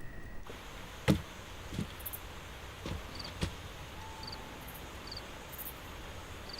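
Insects chirping outdoors in short, high, repeated chirps about once a second, over a quiet steady background. A few separate knocks or footsteps come in the first half.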